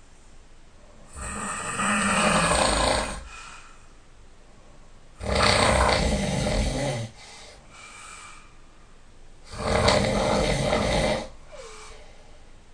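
A person snoring loudly: three long snores of about two seconds each, roughly four seconds apart, with quieter breathing between them.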